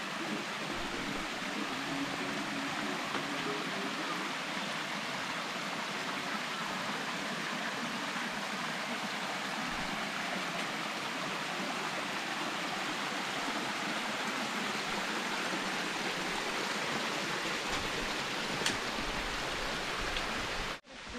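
Steady rush of flowing water, an even unbroken noise that cuts out abruptly for a moment near the end.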